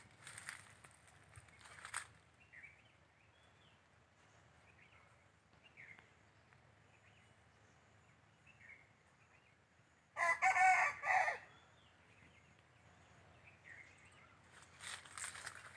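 A rooster crows once, loudly, for about a second, about ten seconds in, over scattered faint bird chirps. Brief rustling near the start and again near the end.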